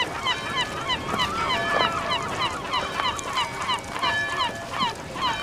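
A flock of birds calling: many short, falling calls overlapping, several a second.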